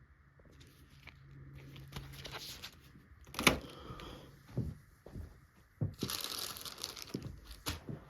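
Paper gift bag and the gifts being handled and packed into it: crinkling and rustling with scattered clicks, a sharp knock about three and a half seconds in and a longer rustle about six seconds in.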